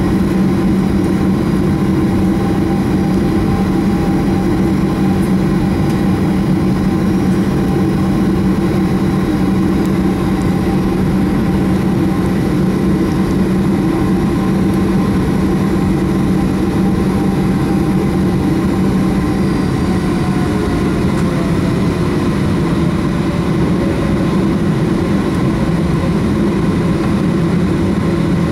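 Boeing 737-800's CFM56-7B turbofan engines running at low taxi power, heard from inside the cabin: a steady deep drone with thin whining tones above it. One whine slides down in pitch about twenty seconds in.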